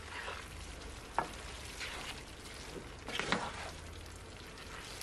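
Cabbage, saltfish and vegetables sizzling softly in a nonstick skillet as a spatula stirs them, with short scrapes of the spatula through the pan about a second in and again just past three seconds.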